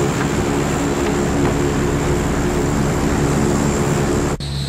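Lockheed WP-3D Orion's four turboprop engines running, a steady propeller drone with a thin high turbine whine over it. Near the end the sound cuts abruptly to a different, lower and steadier drone.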